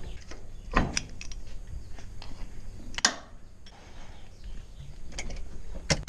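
Sharp clicks and knocks of hands handling cable plugs and metal fittings at the back of a tractor and its implement, over a low steady rumble. The loudest knocks come about a second in, about three seconds in and at the very end.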